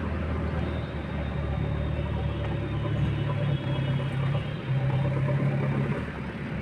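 JCB backhoe loader's diesel engine running. Its revs rise about a second in, hold, and fall back near the end.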